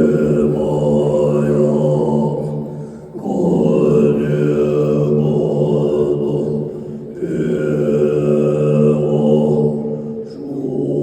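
Low, droning Buddhist mantra chanting: long held notes of about three to four seconds each, with short breaks for breath between them and the vowel sound shifting within each note.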